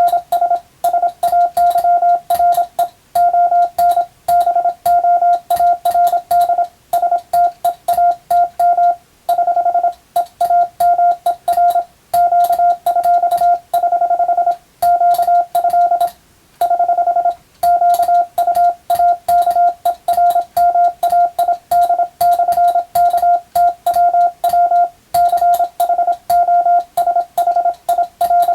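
Morse code sent by hand on a telegraph key: a single steady beep tone keyed rapidly and continuously into dots and dashes at a fast sending speed, with short breaks between words and a sharp click at each keying.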